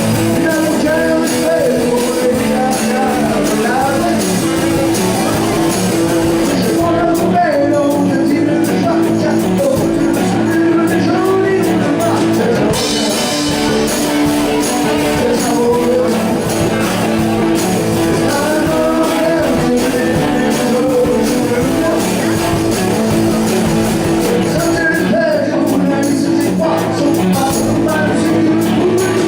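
Rock and roll music: a band with guitars and a singing voice, playing continuously at a steady level.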